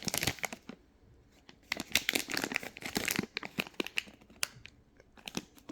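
Plastic packaging of motherboard accessories crinkling and rustling as it is handled, in irregular bursts of crackles, busiest in the first couple of seconds with a few more near the end.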